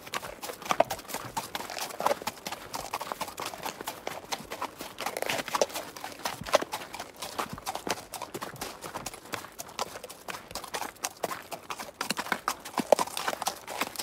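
Horse hooves trotting: a dense, irregular clip-clop of hoof strikes.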